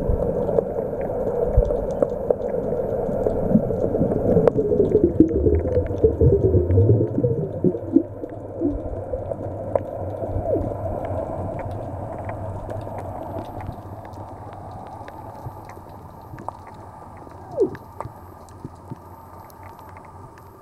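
Muffled underwater sound picked up by a submerged camera: sloshing water noise with gurgling bubbles, busiest in the first eight seconds, then dying down. Faint crackling clicks run throughout, and a single short gurgle comes near the end.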